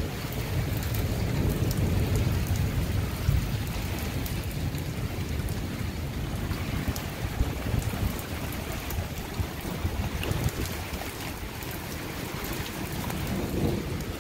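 Strong storm wind gusting and buffeting the microphone as a dense, steady low rumble, with rain and scattered small ticks over it.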